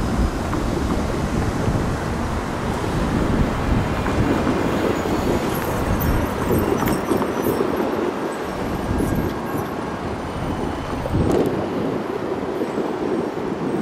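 Steady, rumbling outdoor noise from wind buffeting the microphone and street traffic passing over the railroad crossing, with no crossing bell sounding.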